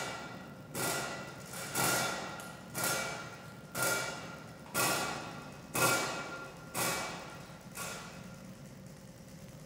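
Struck percussion beaten at an even pace of about one hit a second, each hit ringing on a few steady tones and dying away; the hits stop near the end, leaving about two seconds without one.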